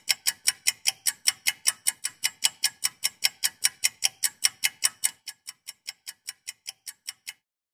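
A rapid, regular ticking sound effect, about four sharp ticks a second. About five seconds in the ticks become fainter and thinner, and they stop near the end.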